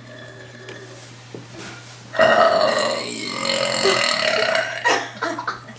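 A person forcing out a long burp in a burping contest. It starts about two seconds in and goes on loud and pitched for nearly three seconds, then gives way to a few short sounds near the end.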